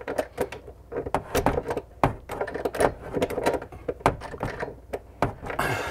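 Wrenches working on the faucet's compression fitting under a sink: a run of irregular clicks, knocks and scrapes as the nut is tightened snug.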